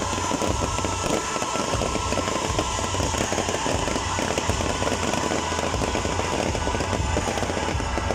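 Aerial fireworks going off in rapid succession: a dense, continuous crackle of many small reports from rising comet-tailed shells and their bursts.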